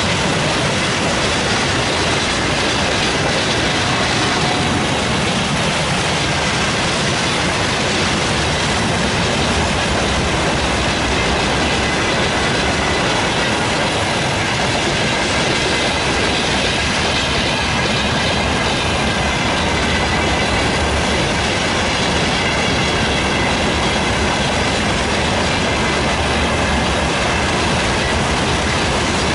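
A long freight train's wagons rolling steadily past, their steel wheels clattering over the rail joints, with a faint high squeal of wheel on rail.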